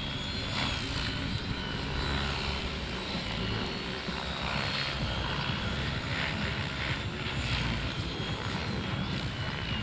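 Model aircraft engine noise running steadily, with a thin, slightly wavering high whine over a low rumble.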